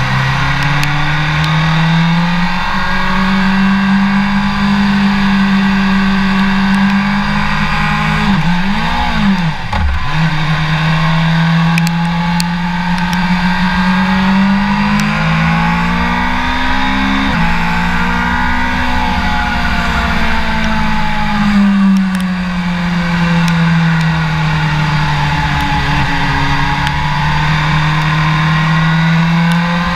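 BMW S1000RR inline-four engine heard from on board while riding, its pitch rising and falling with the throttle through gear changes. Around nine seconds in the pitch drops sharply and then climbs straight back.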